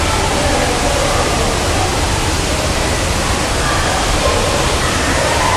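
Steady rush of water echoing around an indoor pool hall, mixed with the splashing of a lap swimmer.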